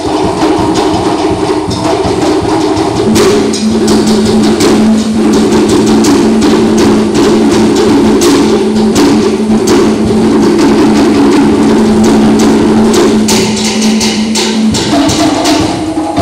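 Cook Islands ka'ara wooden slit drums struck rapidly with sticks, several players keeping up a fast, dense rhythm. A steady low hum runs underneath from about three seconds in until near the end.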